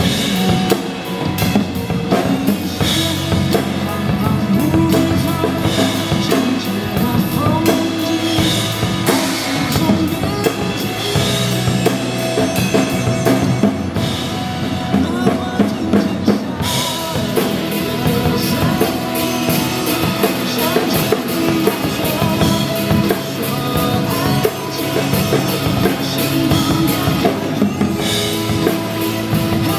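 Acoustic drum kit played live over a recorded pop song backing track, with bass drum, snare, toms and cymbals in an instrumental stretch. The cymbals thin out for a couple of seconds about halfway through, then the full kit comes back in.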